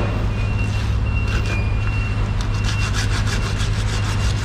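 Saw-toothed knife sawing through a raw marlin loin in rasping strokes, about five a second, starting a couple of seconds in, over a steady low mechanical hum.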